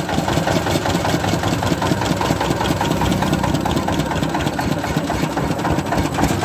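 An engine running steadily close by, with a rapid, even beat.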